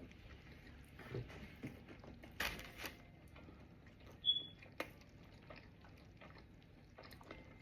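Faint eating sounds: chewing with scattered small clicks and rustles, a brief louder rustle about two and a half seconds in, and a short high squeak a little past halfway.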